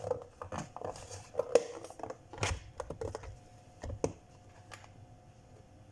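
Plastic food-storage tubs and lids being handled: a run of irregular clicks, taps and knocks as a lid is fitted and pressed shut, the sharpest about a second and a half in, dying away after about four and a half seconds.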